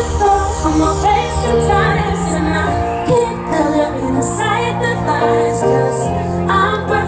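Live pop band playing, with a woman singing over guitar, drums and keyboards, recorded from among the concert crowd.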